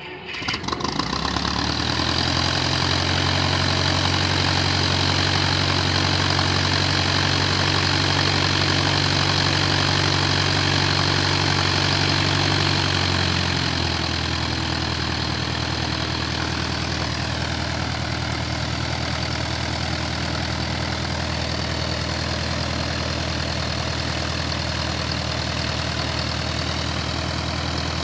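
A 1974 Piper PA-28 Warrior's four-cylinder Lycoming engine catches and runs up just after start-up. About 13 seconds in it drops to a lower, steady idle.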